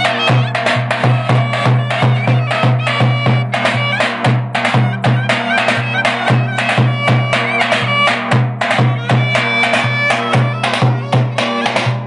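Turkish folk music: a clarinet plays a wailing, ornamented melody over a davul bass drum beaten in a fast, steady rhythm.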